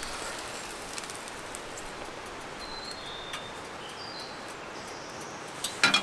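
Steady hiss of wind through the forest, with a few short, high bird whistles in the middle. A quick cluster of sharp knocks near the end is the loudest sound.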